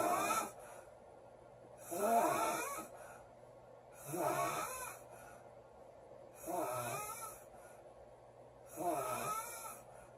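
A woman snoring loudly in a regular rhythm, one snore about every two to two and a half seconds, five in all.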